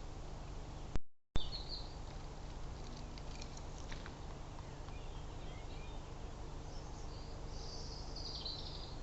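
Small birds chirping over a steady background hiss: a short chirp just after a brief dropout about a second in, a few faint ticks around three to four seconds, and a cluster of higher chirps near the end.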